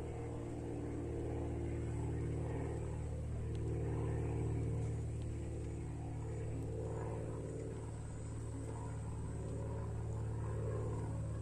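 Small boat motor pushing a wooden canoe along, running at a steady, even hum.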